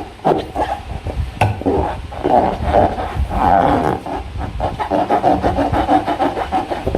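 A slime-filled rubber balloon being handled: the rubber rubs and squeaks without a break, with one sharp click about a second and a half in.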